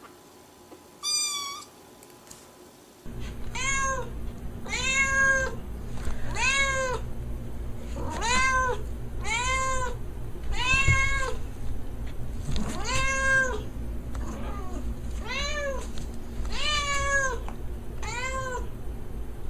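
Kitten meows once about a second in. Then a calico cat meows over and over, roughly one meow a second, each call rising and falling in pitch, over a steady low hum.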